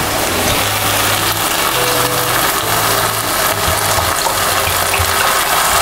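Water poured steadily into a hot pan of frying sauce base for a Manchurian gravy, with a sizzling hiss and a low hum underneath.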